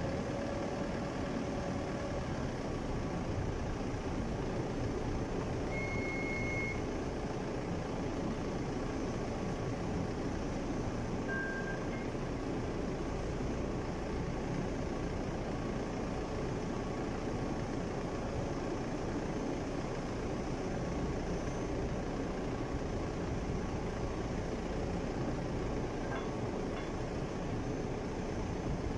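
Toyota forklift engine idling steadily. A short high beep sounds about six seconds in and another near twelve seconds.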